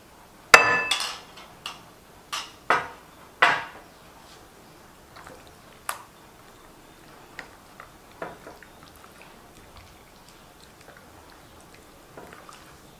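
A glass mixing bowl knocked and clinked by hands working a chilli marinade into fish pieces. A sharp ringing clink comes about half a second in, then a few duller knocks over the next three seconds. After that there are only faint, scattered taps.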